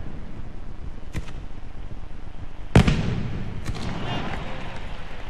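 Pirotècnia de Montcada's fireworks castle exploding: a continuous rumble of bursting shells, with one loud bang about three seconds in and lighter sharp cracks around one second and near four seconds.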